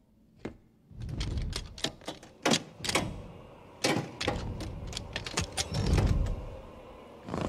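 A metal lever door handle being pushed slowly down, its latch giving a run of sharp clicks and rattles, over low rumbling swells.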